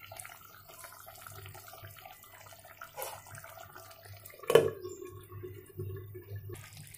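Chicken curry simmering with a faint bubbling in an aluminium pot, then about four and a half seconds in a glass lid is set down on the pot with a sharp clink that rings on briefly.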